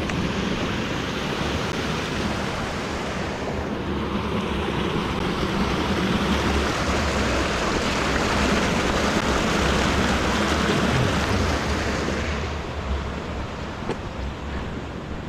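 A creek rushing across a fire road: a steady wash of running water that grows louder toward the middle and fades over the last few seconds.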